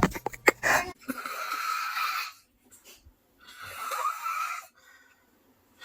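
A man snoring: two long, hissing snores about two and a half seconds apart, with silence between them.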